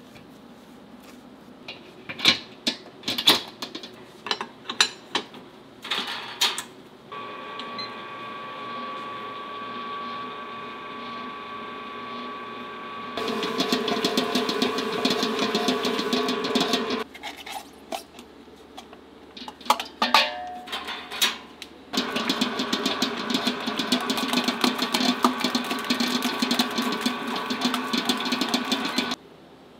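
Electric stand mixer mixing donut dough in a stainless-steel bowl: a few knocks and clicks, then the motor runs steadily, steps up louder at a higher speed, stops, and after more knocks runs loud again before cutting off near the end.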